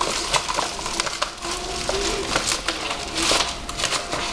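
Packaging being torn open and unwrapped: a continuous run of crinkling and crackling from plastic wrapping and bubble wrap being handled.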